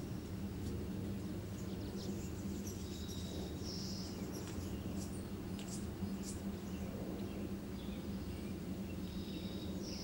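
Steady low background hum, with faint high bird chirps: a short run of chirps about three to four seconds in, a few quick ticks around five to six seconds, and another chirp near the end.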